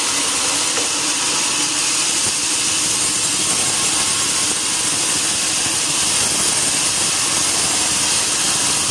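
Sawmill saw cutting through a log: a steady, loud, unbroken noise with no pauses.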